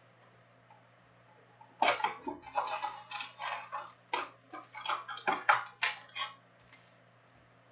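Crinkling and rustling of a trading-card hobby box's cardboard and foil packaging being handled and opened: a quick run of sharp crackles that starts about two seconds in and stops about six seconds in. A faint steady electrical hum lies underneath.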